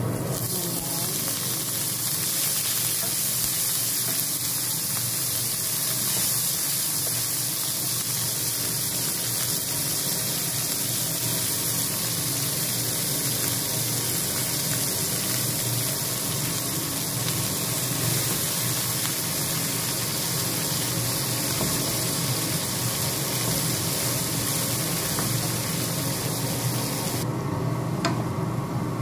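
Onions, garlic and shredded cabbage frying in hot oil in a frying pan: a steady sizzle whose high hiss drops away abruptly near the end.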